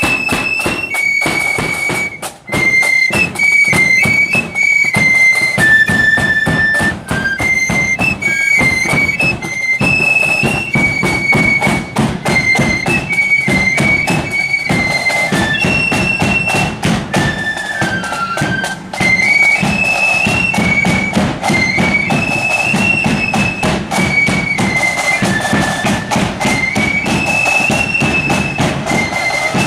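Marching flute band playing a high, stepwise melody on flutes over a steady beat of drums.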